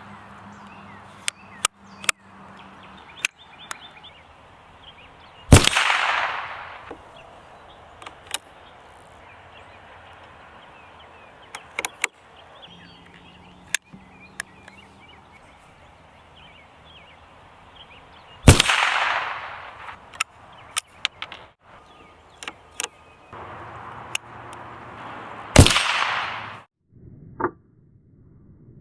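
Three shots from a Winchester Model 1902 single-shot .22 rifle, well spaced apart, each followed by an echo that fades over about a second. Small metallic clicks between the shots, likely the bolt being worked and reloaded, over faint birdsong.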